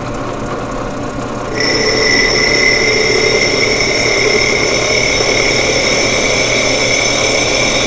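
Ryobi 12-inch drill press running steadily; about a second and a half in, its diamond-tipped bit meets the wet ceramic dish and a high-pitched grinding whine starts and holds.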